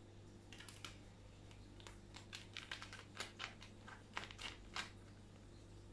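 Faint, irregular light clicks and taps, about a dozen, as a kitten plays with a dangled lanyard and clip on a tiled floor.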